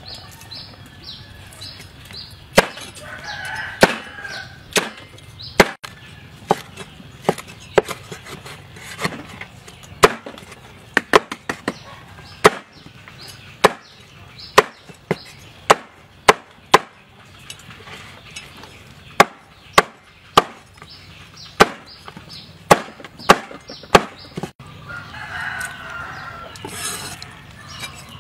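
A blade chopping through roasted pig head on a chopping board: sharp single strikes, roughly one a second and irregular, bunching closer together about halfway through. Background calls rise briefly near the start and again near the end.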